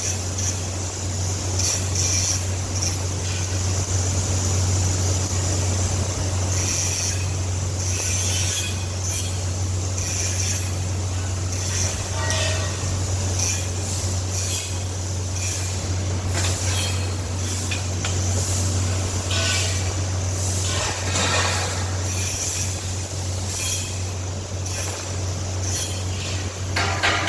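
Steady low hum of running machinery, with irregular short bursts of higher-pitched hiss and clatter over it.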